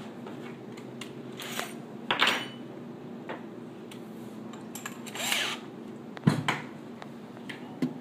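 Short handling knocks and scrapes against a cabinet over a steady low shop hum: a sharp scrape about two seconds in, a short rasp a little after five seconds, and a heavier thump just after six seconds, the loudest sound.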